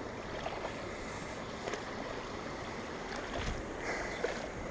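Steady rush of water spilling over the edge of a concrete low-water bridge, with a few faint ticks and a couple of low bumps near the end.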